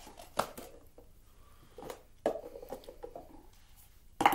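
Handling noises: a few sharp knocks and clicks with some rustling and scraping in the middle, the loudest knock near the end.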